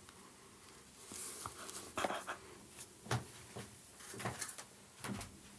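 Handling noise: a brief rustle, then a run of irregular light clicks and knocks, as of small objects being picked up and set down.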